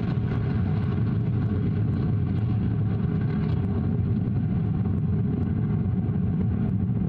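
Vega rocket's P80 solid-fuel first stage motor in powered ascent: a steady, loud low rumble.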